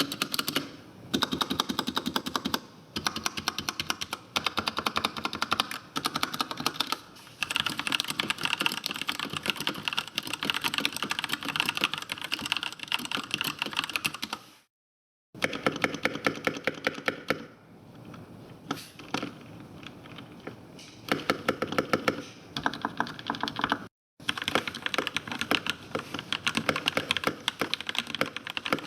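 Fast, continuous typing on an RK61 61-key mechanical keyboard, dense runs of key clicks with the stabilized keys clacking in among them. The sound cuts out completely twice for a moment between runs.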